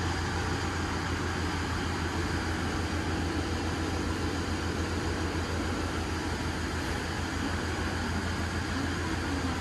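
Diesel railcar idling at the platform with its doors open: a steady low drone with a fast throb, under the even hum of its onboard equipment.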